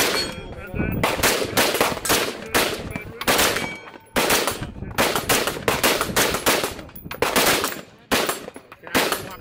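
AR-style semi-automatic rifle fired in a long rapid string, about two shots a second.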